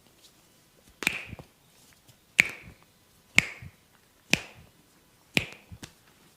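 Five sharp snaps, about a second apart, from a barber's hands during a head massage, each followed by a brief softer rustle.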